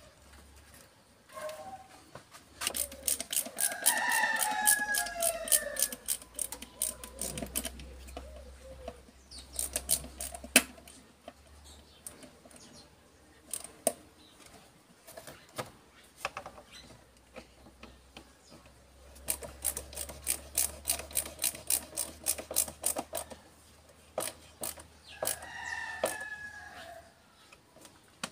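A rooster crowing twice, with bursts of rapid, sharp ticking in between.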